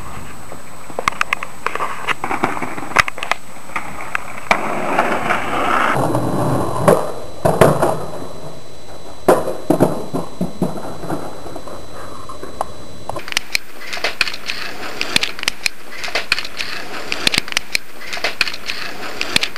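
Skateboard on asphalt: wheels rolling with a rough noise, and sharp clacks of the board hitting the ground several times.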